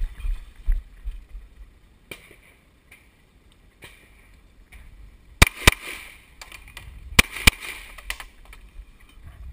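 Semi-automatic pistol fired in two quick pairs, four shots in all, the shots of each pair about a quarter second apart and the pairs nearly two seconds apart, each shot echoing briefly.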